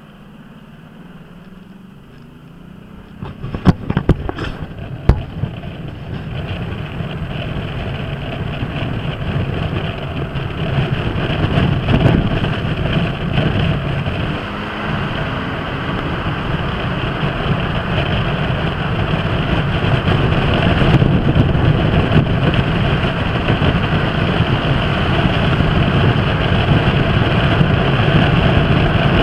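Kymco Downtown 300i scooter's single-cylinder engine running low at first, then a few sharp knocks around four seconds in. After that the engine and wind noise build steadily and grow louder as the scooter picks up speed through a road tunnel.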